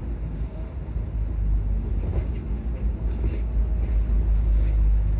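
Volvo double-decker bus heard from the upper deck: a steady low rumble of engine and road noise.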